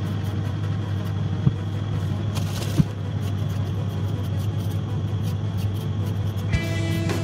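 Hand vegetable peeler scraping the skin off a raw potato, with a couple of light knocks, over a steady low hum. Music with plucked notes comes in near the end.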